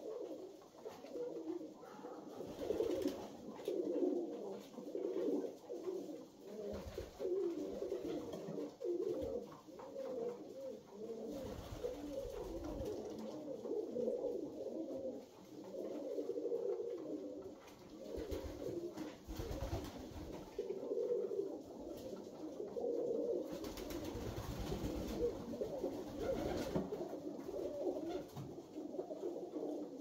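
A flock of Alföldi-Körösi tumbler pigeons cooing, many low coos overlapping without a break, with a few short bursts of noise among them.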